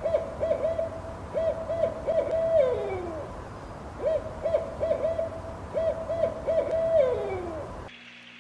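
Owl hooting: two bouts of quick hoots on one pitch, each ending in a falling, slurred note.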